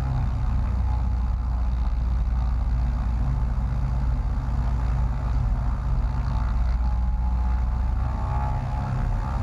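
Light aircraft's piston engine and propeller running steadily at low power while the plane taxis.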